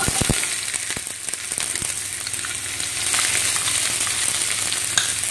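Chopped red onions dropped into hot oil in a non-stick frying pan, sizzling and crackling steadily; the sizzle starts suddenly as they go in, with a couple of knocks at the start.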